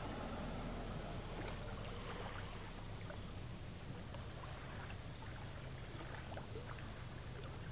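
Riverside outdoor ambience: a steady low rumble and hiss, with faint scattered light ticks.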